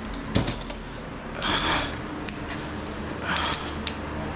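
Metal hand tools clinking in a steel tool chest drawer as a socket extension is picked out, with one sharp clink about half a second in, followed by softer handling scuffs.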